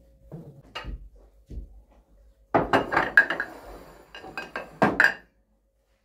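Kitchenware being handled and set down: a few single knocks, then two quick runs of clattering and clinking knocks, loudest about halfway through and again near the end, before it cuts off.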